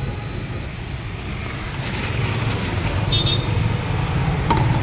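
Steady low rumble of road traffic, with a short high beep about three seconds in.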